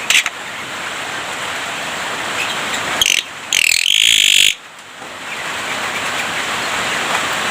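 Javan myna (jalak kebo) giving a loud, harsh, high call about three seconds in, lasting about a second and a half, over a steady background hiss.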